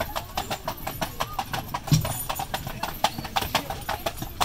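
Hooves of a pair of carriage horses clip-clopping on a paved road: a quick, uneven run of hoofbeats from the two horses stepping out of step with each other.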